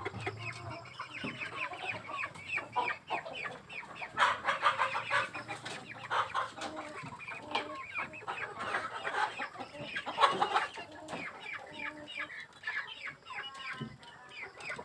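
A flock of ayam kampung (Indonesian village) chickens clucking and chattering on their perches, many overlapping short calls, with louder bursts of clucking about four seconds and ten seconds in.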